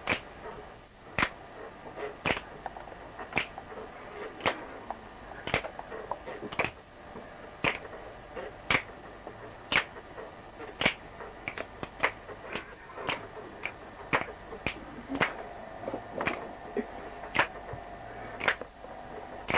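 Sharp percussive clicks in a steady, slow beat, a strong stroke about once a second with lighter strokes between, over faint sustained tones from a quiet acoustic music take.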